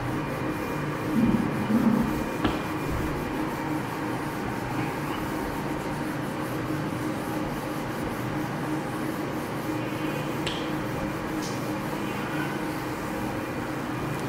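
A cloth duster rubbing across a whiteboard as it is wiped clean, over a steady background hum.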